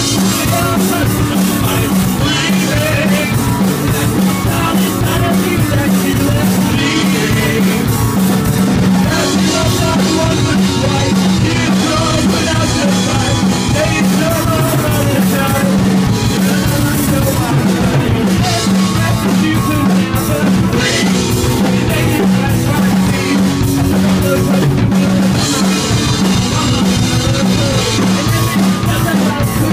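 Live rock band playing loudly: drum kit, electric guitar and bass guitar driving a steady beat.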